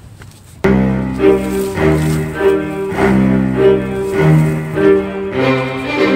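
Background music with low bowed strings, cutting in suddenly about half a second in, changing note about every half second.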